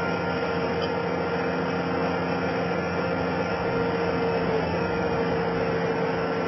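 Skid steer loader engine running steadily, with a constant whine held over it.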